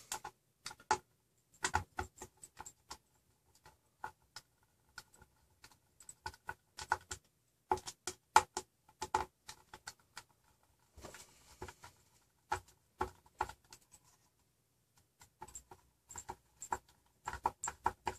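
Small, irregular clicks and taps of hardware as the screws of a RepRap Prusa Mendel's Y-axis GT2 belt clamp are tightened, with a brief scrape about eleven seconds in.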